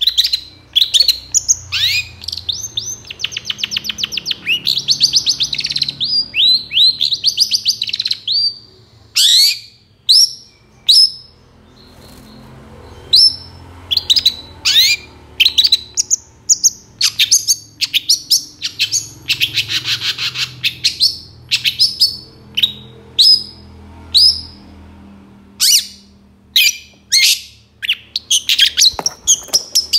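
Long-tailed shrike (cendet) singing: a busy run of sharp, high, down-slurred notes, broken by fast stuttering trills and a harsh rasping chatter about twenty seconds in.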